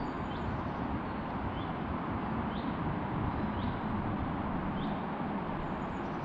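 A small bird repeating one short, high call about once a second over a steady low rushing noise.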